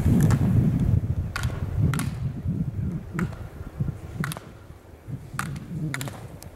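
Wind rumbling on the microphone, loudest in the first second, with a string of sharp clacks about once a second as a slalom racer's skis carve and strike the plastic gate poles.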